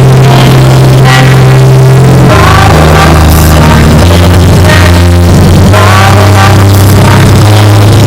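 Loud rock-style background music with sustained bass notes and a sung vocal line.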